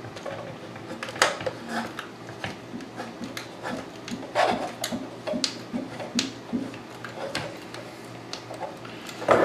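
Phillips screwdriver driving small mounting screws into a metal media-player casing: scattered light clicks and scrapes of metal, with small repeated ticks of the turning screw through the middle.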